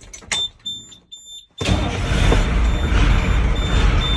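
Chevy Kodiak truck with a freshly replaced starter: a click and a high warning chime beeping a few times a second, then about a second and a half in the engine turns over and keeps running loudly, the beeping going on over it.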